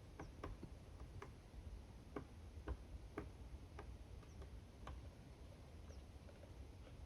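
Campfire crackling: faint, irregular sharp pops and snaps of burning wood, about one or two a second.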